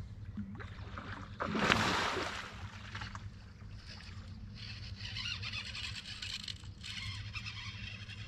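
Fishing reel working under load while a hooked fish is fought on a bent rod: a fine, rapid ticking whirr from about four and a half seconds in, after a short loud rush of noise about a second and a half in.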